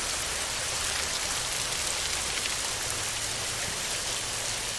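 Heavy rain falling steadily on a tin roof, an even hiss of many drops with faint separate ticks.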